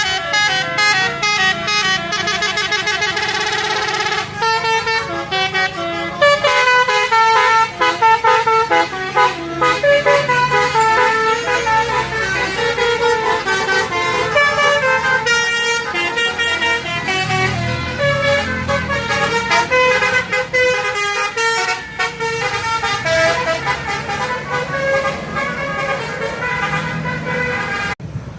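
Indonesian 'telolet' bus horn, a set of electric-valve air-horn trumpets, playing quick stepping melodies of several tones at once, over and over with brief breaks.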